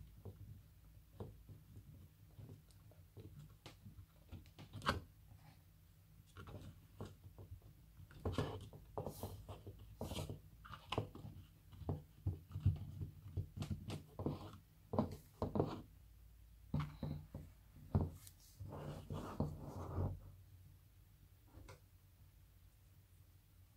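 Kinetic sand being worked with plastic tools and moulds: irregular scrapes, taps and soft clicks, busiest from about eight to twenty seconds in.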